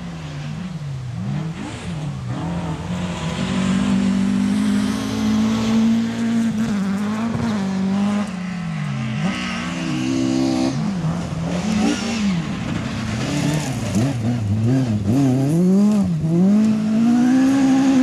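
Ford Sierra RS500 Cosworth rally car's turbocharged four-cylinder engine revving hard, its pitch climbing and dropping again and again through gear changes and lifts for corners. It grows louder as the car comes closer.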